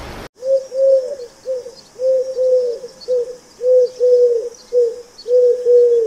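A dove cooing in repeated phrases of three low coos, two longer notes then a shorter one, about every second and a half.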